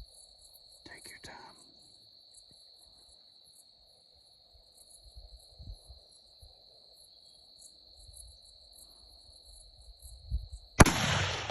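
Steady high-pitched insect drone with rapid chirping over it. Near the end, a single Remington hunting-rifle shot cracks sharply and dies away in an echo.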